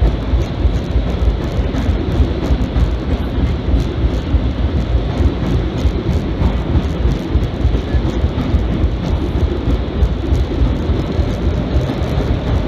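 Vintage R1/9 subway car running through a tunnel, heard from inside the car: a steady low rumble of wheels on rail, with faint rapid clicks over it.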